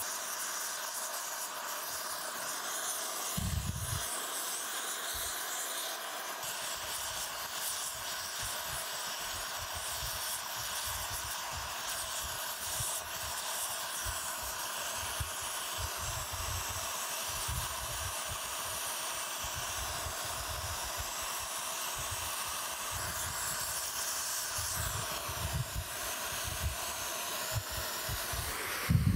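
Oxy-fuel torch with a rosebud heating tip burning with a steady hiss, its flame heating a cast-iron steam chest casting for brazing. The hiss cuts off abruptly right at the end.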